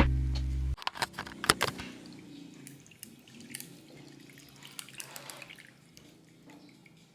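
Music cuts off under a second in, followed by a series of light clicks and clinks over a faint hiss that fades, like small household handling sounds.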